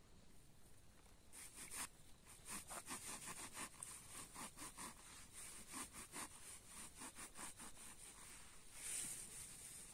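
Footsteps crunching through dry leaf litter and twigs, a few steps a second, over a faint steady chirring of insects.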